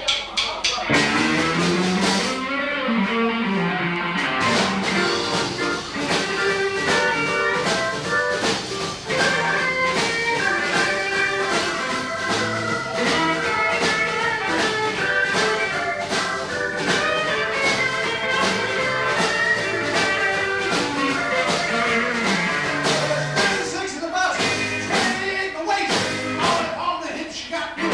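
Live blues band playing: electric guitars over a steady drum beat, with a run of falling low notes near the start.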